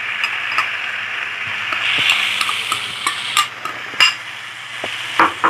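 Chicken pieces frying with a steady sizzle in a pan of sautéed onion, garlic, tomato and curry powder, while a cooking utensil stirs. The utensil knocks against the pan a few times, most sharply about four seconds in.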